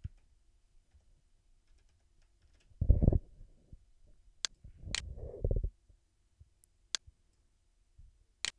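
Computer keyboard keys and mouse buttons clicking as a project name is typed and the dialog is confirmed: a handful of sharp separate clicks, with two duller low thuds about three and five seconds in.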